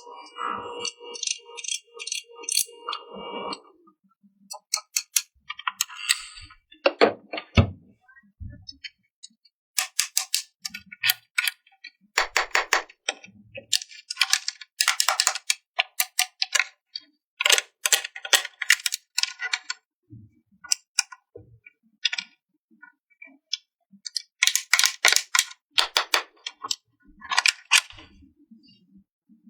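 Small plastic toy pieces rattling and clicking as they are handled and fitted together, in repeated short bursts with pauses between. A short steady tone sounds in the first few seconds.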